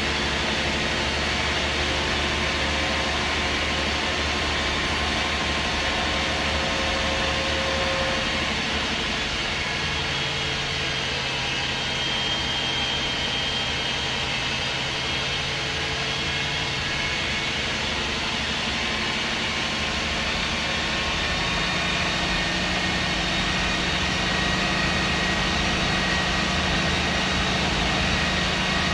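MAN SD202 double-decker bus heard on board: its MAN D2566 MUH six-cylinder diesel engine running steadily through the Voith Diwa automatic gearbox, the engine note changing about ten seconds in and again about twenty seconds in.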